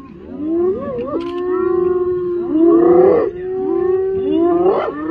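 Several spotted hyenas calling at once: overlapping calls that rise and fall in pitch, with one long held note running through the middle.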